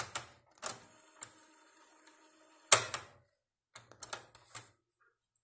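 Piano-key transport buttons on a Sankei Super Sound 90 boombox's cassette deck clunking as they are pressed and released: a run of sharp mechanical clicks, the loudest pair about three seconds in and a quick cluster near the end.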